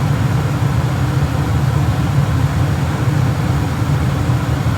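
Gas furnace running steadily with its newly replaced draft-inducer motor, a constant low hum of the fan motors. The new inducer is drawing about 0.6 amps, within its rating: it is running normally.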